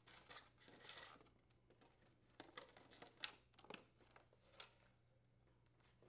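Faint handling noise: a few light plastic clicks and rustles as a plastic ice maker cover is lifted and unclipped, with a cluster of clicks a little after halfway, over a low steady hum.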